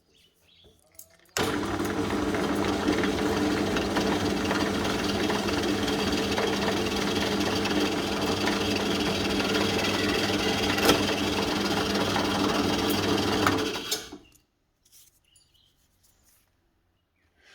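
Electric drill motor starting up sharply and running steadily for about twelve seconds while a 4.5 mm bit drills through plexiglass, then spinning down.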